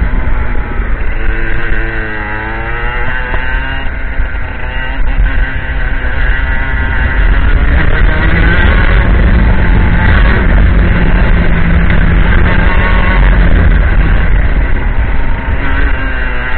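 IAME X30 125cc two-stroke kart engine running at racing speed, heard from on board. The revs drop into a corner about two seconds in, climb back up and hold high, then drop again near the end.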